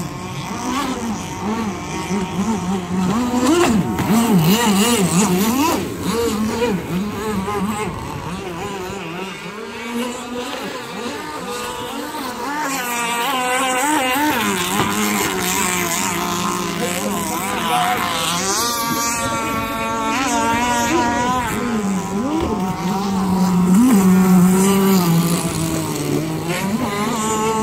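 Racing powerboat engines running at speed, their pitch repeatedly rising and falling as the boats pass and turn; loudest about four seconds in and again near twenty-four seconds.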